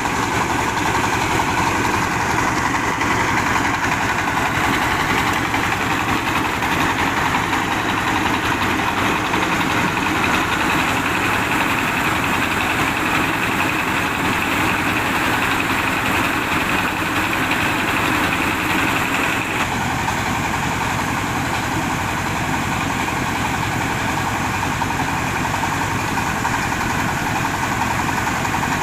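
Mobile rice huller running steadily: its diesel engine and milling machinery make a continuous loud mechanical drone, with a slight change in tone about 20 seconds in.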